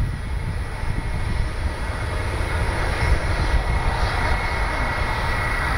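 Japan Airlines Boeing 767's jet engines running at taxi power, a steady whine that grows louder in the second half as the airliner rolls past.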